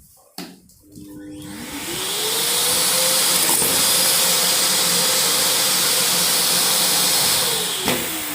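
AmazonBasics 21-litre 1400 W vacuum cleaner switched on with a click. Its motor whine rises as it spins up over about two seconds, then runs steadily with a loud rush of air. Near the end it is switched off with a click and the whine falls as the motor winds down.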